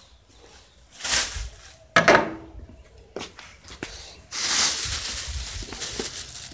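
Thin plastic carrier bag rustling and crinkling close to the microphone from about four seconds in, after two short scuffs or knocks near the start.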